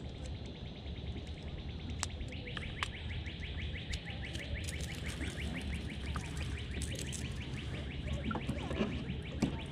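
A rapid, evenly repeated trill of short high chirps, about ten a second, kept up almost without a break, over a steady low outdoor rumble, with a few sharp clicks.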